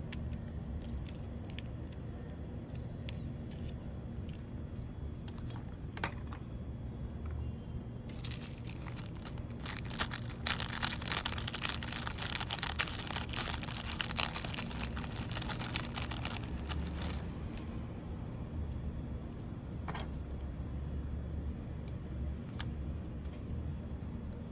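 Light clicks and rustling over a steady low hum, growing into a busy stretch of rapid clicking and rattling for several seconds in the middle.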